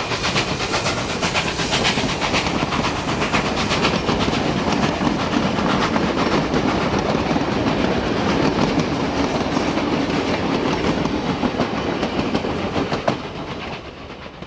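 Steam locomotive 5910 and its train of wooden passenger carriages rolling past close by: a loud, steady rumble of wheels on rail with a fine rapid ticking, fading away near the end as the train draws off.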